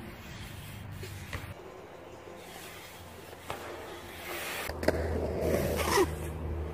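BMX bike riding a concrete skatepark bowl: low tyre rumble with a few sharp knocks. It grows louder about two-thirds of the way through, with a hard knock and a peak near the end.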